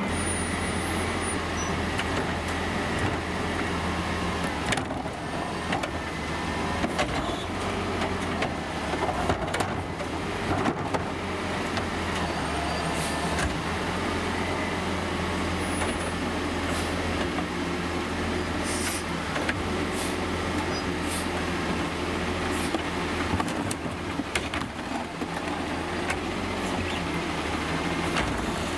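Heil garbage truck with a Curotto Can arm, its engine running with a steady low drone, with scattered sharp knocks and clanks through the middle and later part.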